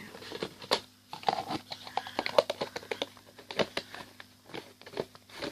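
Slime being handled in a plastic tub: a rapid, irregular run of small clicks, pops and crackles.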